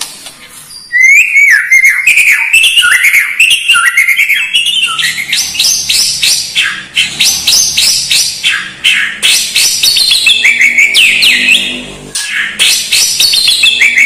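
White-rumped shama singing a loud, fast, varied song of whistled notes and rapid chattering phrases, starting about a second in after a brief lull.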